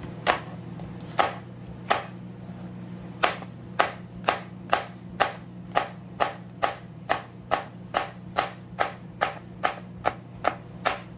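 Santoku-style kitchen knife chopping a jalapeño pepper on a plastic cutting board: a few spaced knocks, then from about three seconds in a steady rhythm of roughly two chops a second.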